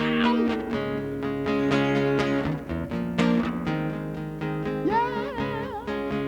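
Acoustic guitar strumming chords as a song plays out, with a brief wordless sung note with wide vibrato about five seconds in.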